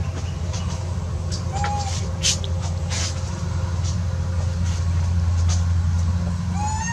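Steady low rumble like a running motor or traffic, with two short chirping calls, one about a second and a half in and one near the end, and a few faint clicks.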